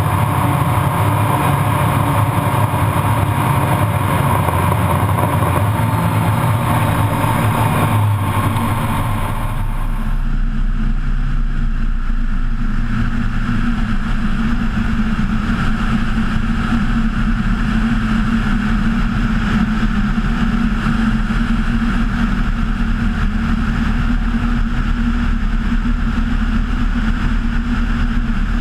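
Kitfox IV light aircraft's engine and propeller running steadily at power. About ten seconds in, the sound changes abruptly: the hiss above fades and a steadier low hum remains.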